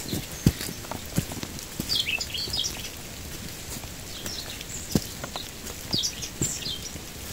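Footsteps of someone walking on a wet, muddy dirt trail, a thud about every second or so, with birds chirping in a few short bursts between the steps.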